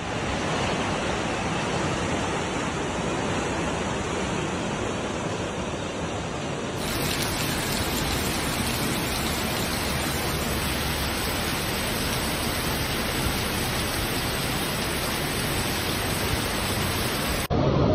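Torrential rain pouring down with floodwater rushing across the street, a steady dense hiss that turns brighter about seven seconds in.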